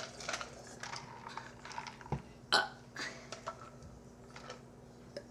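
A person burping in a few short bursts, the loudest about two and a half seconds in, with small clicks and mouth sounds between them.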